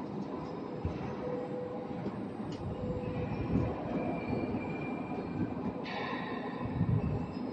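Double-layer roll forming machine running: a steady mechanical rumble of steel sheet passing through the rollers, with faint thin squealing tones and a short high metallic scrape near the end.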